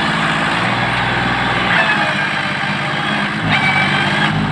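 Massey Ferguson 246 tractor's diesel engine running while the tractor is bogged down in deep mud, its engine speed shifting up and down several times.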